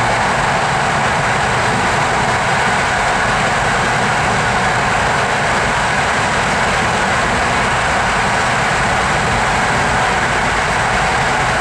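Steady running noise of an InterCity passenger coach at speed, heard from inside the carriage: an even rolling rush with no breaks or distinct clicks.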